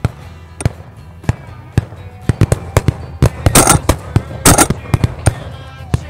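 Rapid, scattered shotgun fire from several guns: a few shots in the first two seconds, then a dense run of a dozen or more from about two to five and a half seconds in. The two loudest and longest blasts come about three and a half and four and a half seconds in. Background music plays underneath.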